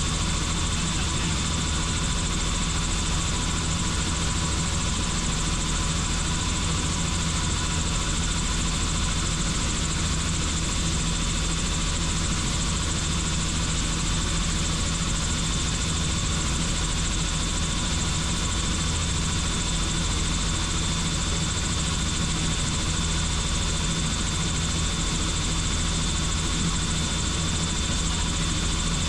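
Helicopter in steady flight: the rotor and engine run evenly, a low drone with a thin, steady high tone above it.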